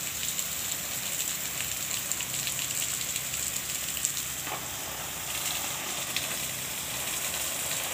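Water spraying from a garden hose onto plants and soil: a steady hiss.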